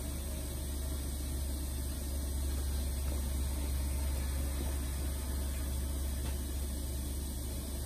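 Steady low hum of a small motor running, with a faint even hiss over it.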